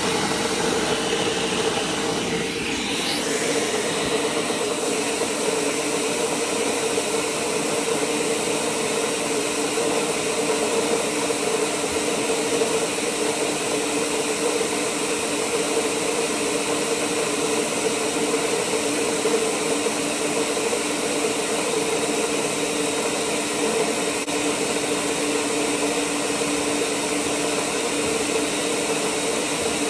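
Countertop blender motor running steadily, grinding peanuts into peanut butter: a constant whir with a steady hum.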